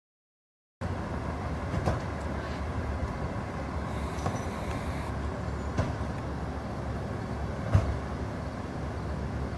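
Idling emergency-vehicle engines: a steady low rumble that starts abruptly after a brief silence, with a few sharp knocks, the loudest near the end.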